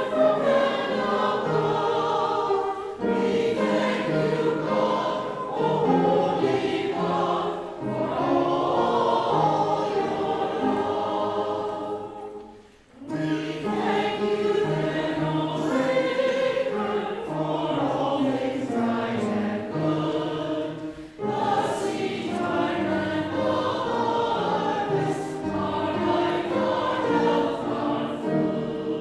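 Choir singing in parts, with short breaths between phrases and a longer pause about halfway through.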